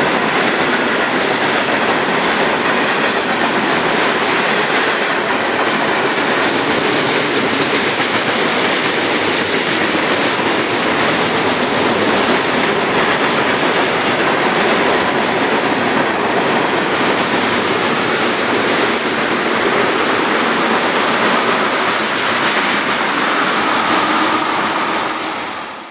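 Freight train's cars rolling past at speed: steady noise of steel wheels running on the rails, fading out at the very end.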